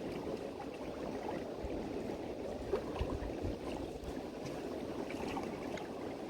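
Steady wash of sea water moving against the shore, with a few faint ticks.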